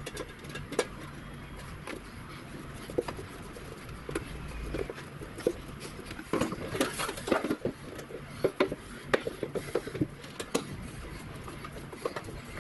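Small hardened self-tapping screws being driven with a screwdriver into a galvanized sheet-steel case: irregular clicks and scrapes of metal on metal, coming in clusters around the middle.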